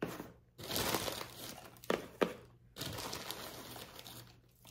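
Paper shred gift-box filler and its plastic bag rustling and crinkling as handfuls are pulled out and stuffed into a cardboard box, in uneven stretches. Two short clicks come about two seconds in.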